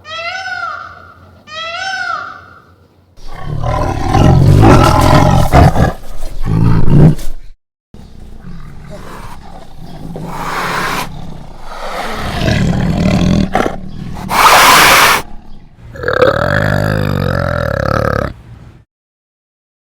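A cat meowing twice, then a run of loud, deep, rough animal calls in several separate bouts with short gaps between them.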